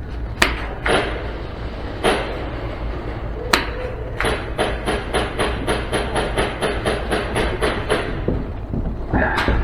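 Airsoft guns firing in an arena: a few single sharp shots, then an even string of about five shots a second for nearly four seconds.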